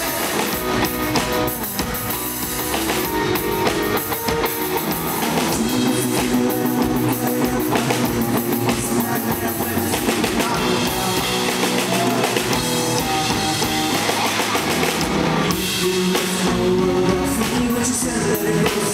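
Rock band playing live: drum kit and guitar with a male lead vocal.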